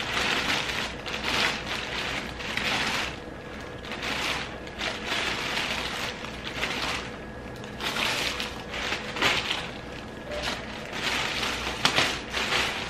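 Thin clear plastic bag crinkling and rustling in irregular bursts as it is pulled down off a tote bag.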